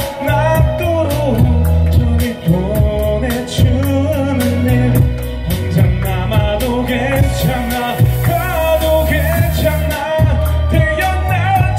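A man singing live into a handheld microphone over an amplified backing track with a steady beat and heavy bass.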